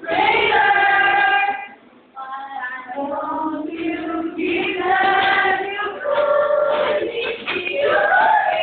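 A group of mostly female voices singing together, opening on a long held note, breaking briefly about two seconds in, then going on with the song.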